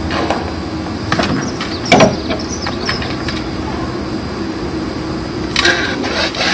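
A person gasping: occasional noisy, irregular breaths, one about two seconds in and another near the end, over a steady background hum. In first aid this kind of gasping, agonal breathing, is taught as a sign of cardiac arrest rather than normal breathing.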